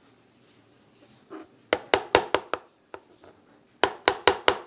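A spoon knocking against a bowl as slime is stirred: a quick run of about four sharp clacks a little under two seconds in, and another of about five near the end.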